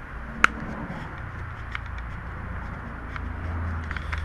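A flat-bladed screwdriver working a plastic locking tab on a motorcycle's indicator mounting: one sharp click about half a second in, then a few light ticks and taps. A low steady rumble runs underneath.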